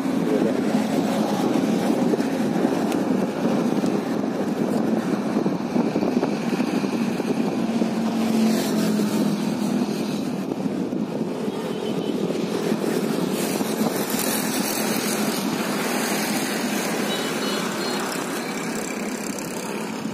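Steady, even vehicle rumble with no distinct events.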